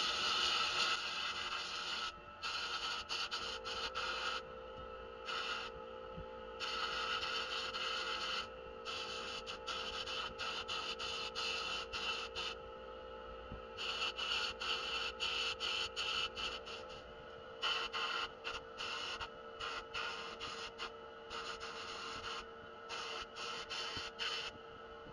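Sandblast cabinet's blast gun hissing in repeated bursts, short and longer, as the trigger is pulled and released, blasting rust off small toy-truck parts. A steady hum runs underneath from a few seconds in.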